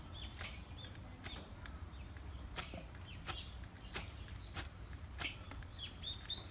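A ferrocerium fire-starter rod being struck again and again, a sharp scrape about every two-thirds of a second. Faint bird chirps in the background.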